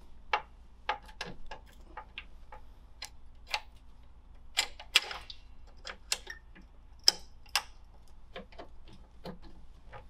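Irregular small metallic clicks and taps, a couple of them louder, as a long mounting screw and a safe-lock body are jostled against the safe door's lock-mounting plate while the screw is worked into line with the hole through the glass relocker plate.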